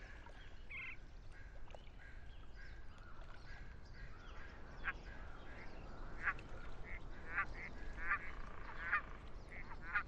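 Short, repeated animal calls, a few sparse ones early and then about one each second in the second half.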